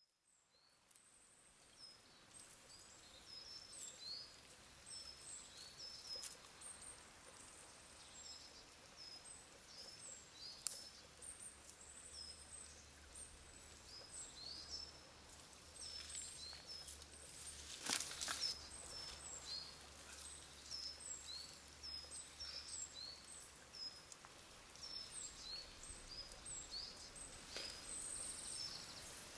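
Faint woodland ambience fading in from silence: many short, repeated high bird chirps over a soft hiss, with a low steady rumble underneath in the second half. A brief louder rustle is heard about two-thirds of the way through.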